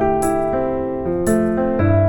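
Background music: a gentle piano tune with a soft, light beat.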